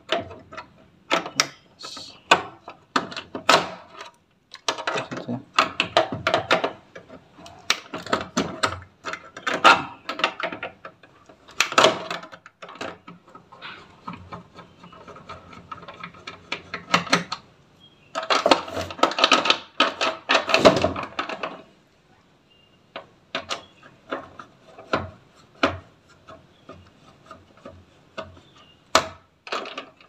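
Hand tools working on the plastic control-panel housing of an Electrolux washing machine while the door switch is taken out: irregular clicks, knocks and scrapes of pliers and a screwdriver against plastic and wiring.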